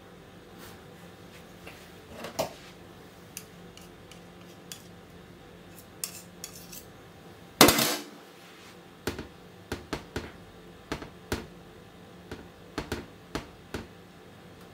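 Cutlery clinking and tapping against a glass dish as a spoon and then a knife work caramel through ice cream: scattered light clicks, a sharp clatter a little before the eight-second mark, then a quick run of light taps near the end.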